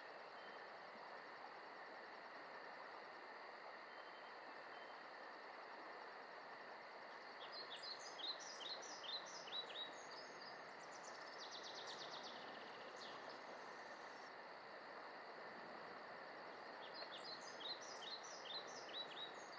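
Faint outdoor ambience with a steady hiss, where a bird sings a quick run of descending chirps twice, once about a third of the way in and again near the end, with a short buzzy trill between them.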